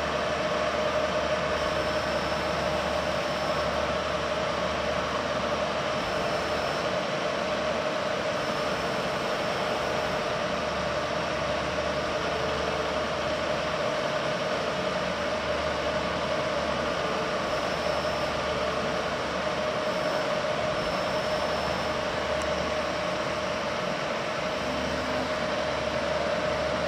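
Correa A-10 CNC bed milling machine running under power: a steady machine hum with one constant whining tone.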